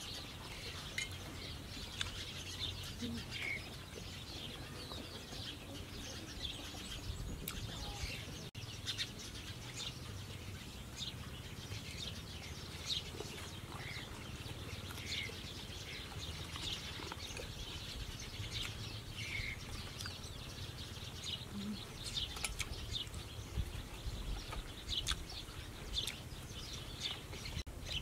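Small birds chirping and ticking now and then over a faint, steady outdoor background noise.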